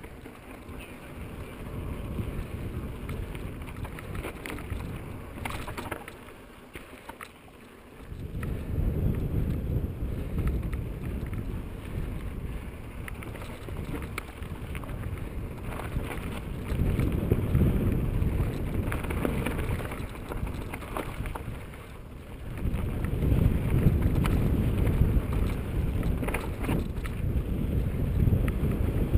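Wind buffeting the microphone as a mountain bike rolls fast down a dirt singletrack, with tyre rumble and brief rattles over bumps. The wind noise swells as speed picks up, at about eight, seventeen and twenty-three seconds in.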